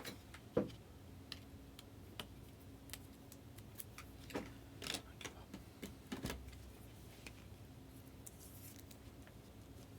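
Scattered light clicks and taps of trading cards and rigid plastic top loaders being handled as a card is worked into a top loader, with the sharpest tap about half a second in and a cluster of clicks around the middle.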